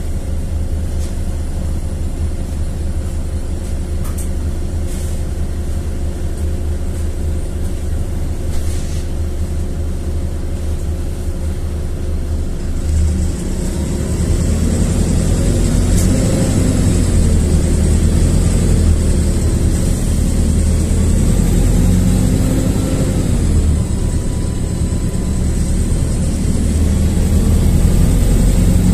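LiAZ-4292.60 city bus's diesel engine heard from inside the bus, with a steady low drone at first. About halfway through it gets louder, its pitch rising and falling as the bus pulls away and accelerates, while a high whine sweeps up and down.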